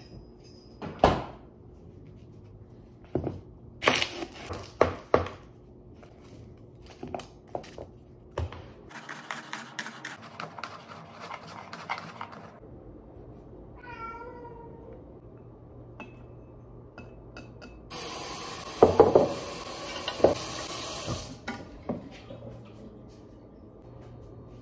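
Home kitchen prep sounds: a kitchen knife chopping garlic on a wooden cutting board in a quick run of strokes, among scattered knocks of utensils and food being handled. A cat meows once near the middle, and later the kitchen tap runs for a few seconds.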